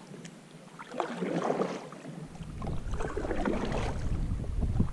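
Kayak paddle strokes splashing in calm water, twice, with a low wind rumble on the microphone starting about two seconds in.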